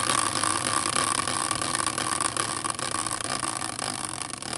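A caster wheel, used as a prize wheel, spinning freely in its metal fork after a hand spin: a steady whir that slowly fades as it spins down.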